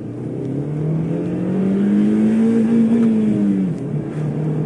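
Honda Civic's i-VTEC four-cylinder engine revving hard under full throttle in first gear. Its pitch climbs for about two and a half seconds, then eases and drops sharply just before the end, where it settles into a steady lower note.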